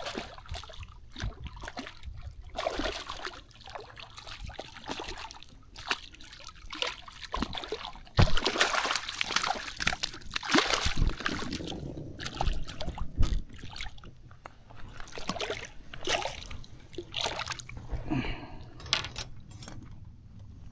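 Water splashing and sloshing in irregular bursts, loudest about eight to eleven seconds in.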